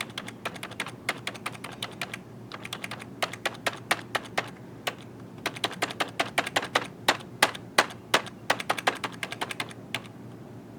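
Computer keyboard key tapped rapidly over and over in runs of clicks, pressing F11 to call up the motherboard's boot menu during start-up.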